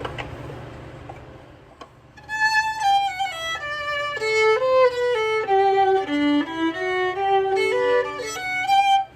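A violin, the restored vintage German Stradivarius copy, plays a short melody of held single notes that wander down and back up. It starts about two seconds in, after a steady background noise has faded away, and stops abruptly just before the end.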